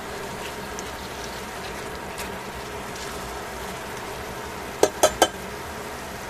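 Sliced pork sizzling steadily in a stainless steel frying pan as it is stirred with tongs. About five seconds in, three quick, sharp, ringing clacks of the tongs knocking against the pan.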